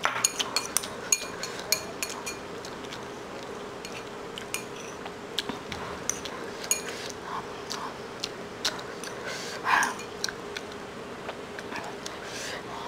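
Chopsticks clicking and scraping against a bowl as instant noodles are stirred and lifted, with a few brief soft eating noises in between.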